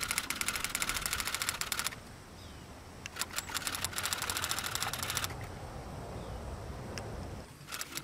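An insect calling in the rainforest, a fast, even run of clicks that comes in two spells of about two seconds each with a gap between them.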